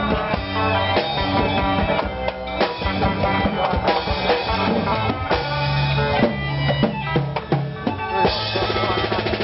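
Music with drums: quick drum hits over held melody notes. About eight seconds in, the drumming thins out and steadier held tones take over.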